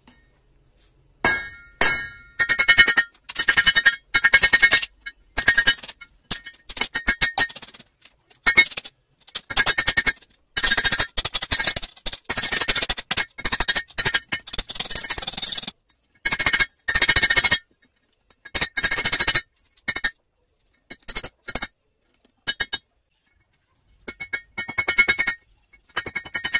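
Hammer blows on red-hot leaf-spring steel over a steel-block anvil, struck in quick runs with a bright metallic ring, with short pauses between runs.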